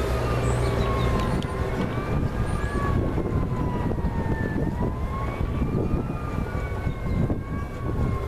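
Vintage Lasko Galaxy 3746 box fan running on its low setting, a steady low hum and rush of air. Over it, an emergency-vehicle siren wails, slowly falling and rising in pitch.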